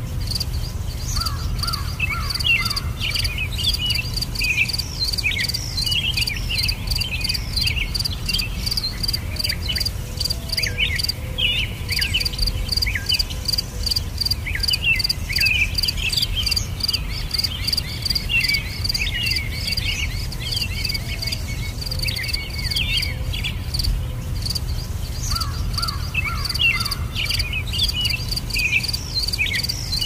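Crickets chirping in a fast, even train of pulses, with small birds calling over them in short quick notes and a low steady rumble beneath. The cricket trill breaks off briefly a few times.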